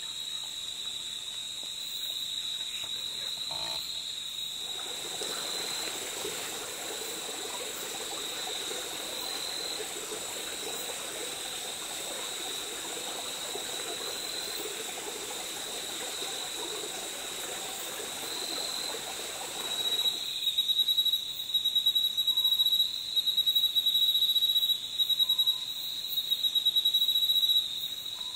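Night forest insects trilling: a steady high-pitched trill runs throughout. From about five to twenty seconds in, a lower, rougher continuous layer joins it. From about twenty seconds in, a louder trill starts, pulsing on and off rapidly in short runs.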